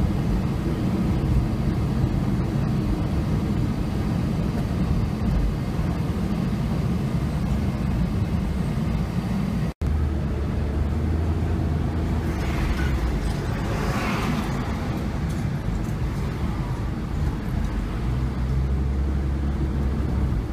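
Car driving in city traffic, heard from inside the cabin: a steady low engine and tyre rumble. A split-second dropout comes about halfway through, and a few seconds later a rushing noise swells and fades.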